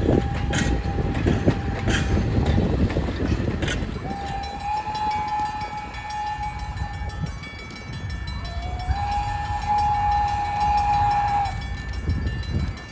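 Steam train whistle blowing long blasts at a single pitch, each rising a little as it sounds, the kind blown for a grade crossing. The first blast sounds over the rumble and clicking of passenger cars rolling past, and two more start about four and eight and a half seconds in.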